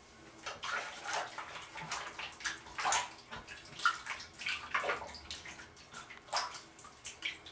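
Water splashing and sloshing in a bathroom sink as hands rinse in it, in irregular bursts.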